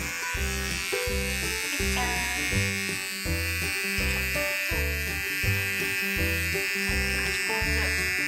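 Electric pet nail grinder running with a steady high whine as it files a puppy's claws, over background music with a regular beat.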